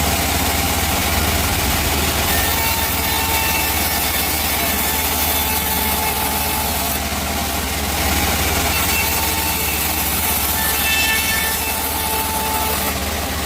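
Chainsaw running steadily while sawing teak wood.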